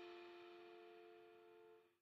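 Background music with a held chord dying away, fading to near silence about half a second in.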